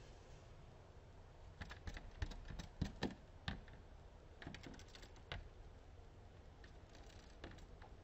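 Variegated fairy-wrens tapping and fluttering against window glass: irregular clusters of sharp clicks, the loudest a little under 3 s in.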